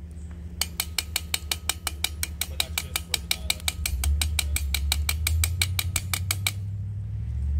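Rapid, even mechanical clicking, about six clicks a second, that runs for about six seconds and then stops. A steady low hum lies underneath and grows louder about halfway through.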